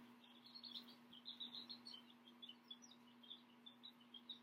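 Faint bird chirping: a quick, irregular run of short high chirps, with a steady low hum underneath.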